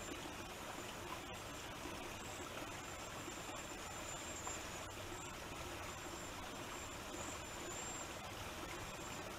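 Steady, even outdoor hiss through a trail camera's microphone, with a faint high-pitched whine coming and going.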